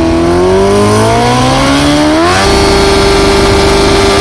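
An engine revving up, its pitch climbing smoothly for about two seconds, then held steady at high revs.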